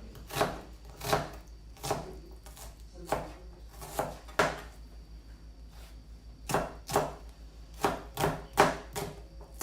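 Knife chopping an onion finely on a wooden cutting board: irregular sharp knocks, about one or two a second, with a brief pause in the middle.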